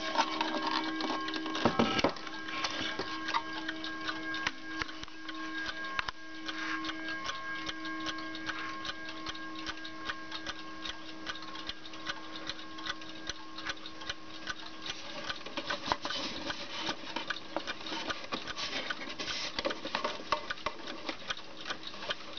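1954 Hermle mantel clock ticking steadily, with the ring of its strike fading away over the first several seconds. A single knock comes about two seconds in.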